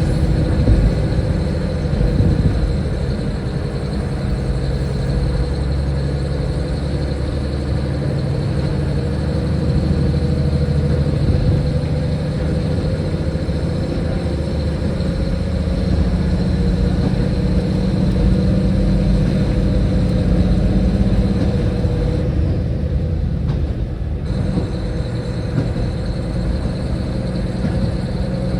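Diesel railcar engine running steadily, with a few held low tones and no sudden changes.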